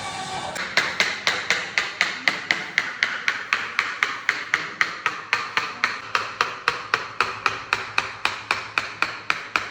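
A steady run of sharp taps or clicks, about four a second, evenly spaced and all of similar loudness.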